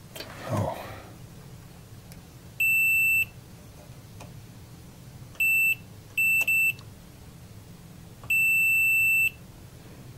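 Digital multimeter's continuity beeper sounding five times, a steady high-pitched beep each time a probe touches a fuse clip. The beeps are of uneven length: a short one, a shorter one, a quick double, then one held about a second. Each beep signals continuity, because the tops of these fuse clips are all wired to a common point.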